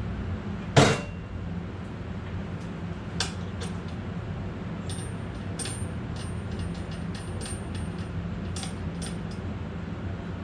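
A sharp clank about a second in, then a series of light clicks and small rattles, as metal parts of a chop saw are handled, over a steady low hum.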